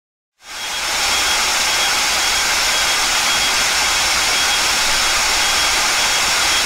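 Spray-paint can hissing sound effect: a loud, steady hiss that fades in shortly after a moment of silence and then holds level.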